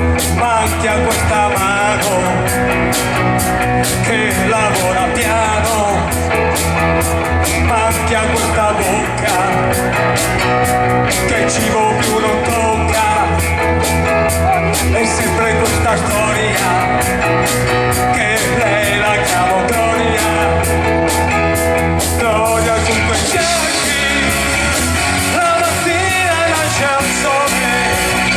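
A rock song with a singing voice over a steady drum beat.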